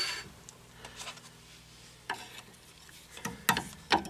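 Light clicks and taps of metal tools and brake parts being handled, sparse at first, with a few sharper knocks in the last second.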